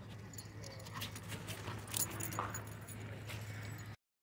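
Faint outdoor background: a steady low hum with scattered light clinks and scuffs. It cuts to silence just before the end.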